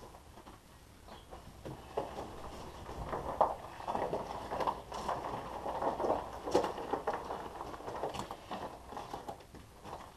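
Irregular clatter and knocks of steel, with crunching on a gravel floor, as a small trailer's wheeled undercarriage with its turntable is rolled and shoved into place under a steel tipper frame.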